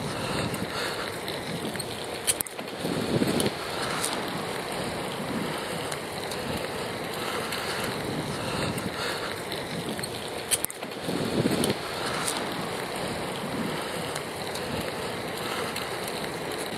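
Steady rushing noise of a recumbent bicycle on the move: wind over the rider's earpiece microphone together with rolling noise. A couple of sharp clicks come through, one a couple of seconds in and one just past the middle.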